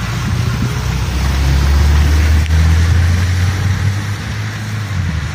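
A car passing close by on a wet street: a low engine rumble that swells a second or two in and eases off near the end, over a steady hiss of tyres on wet pavement.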